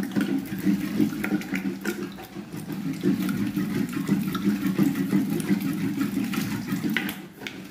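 Thick mustard-greens saag being churned with a hand masher in a pot: a continuous wet squelching and sloshing, with scattered short knocks of the masher against the pot.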